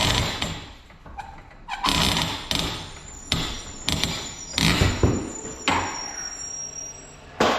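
Garage door torsion spring hardware being worked loose, with a string of sharp knocks and clanks at uneven intervals, some leaving a brief metallic ring.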